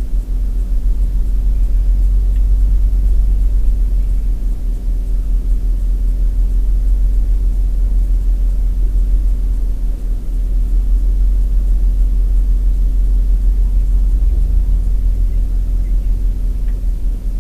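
Steady low rumble of a vehicle on the move, rolling along with a funeral procession.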